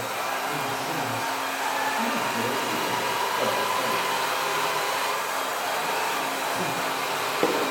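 Electric motors and hydraulic pumps of radio-controlled construction models running with a steady whir, the pitch shifting up and down as the machines work. A sharp knock sounds near the end.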